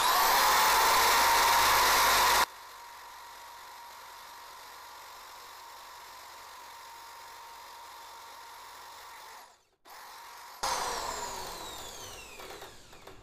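Electric drill fitted with a wire cup brush, spinning up to speed and running while small sewing machine parts are held against the brush to scour off rust, dirt and old oil. It runs loud for the first couple of seconds, then much quieter and steady. Near the end it winds down with a falling whine.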